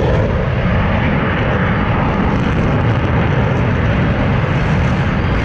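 Aircraft flying over in an airshow display, its engine noise loud and steady and heaviest at the low end.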